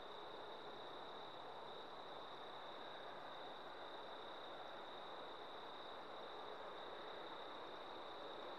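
Faint, steady hiss with a thin, constant high-pitched tone running through it, and no distinct events.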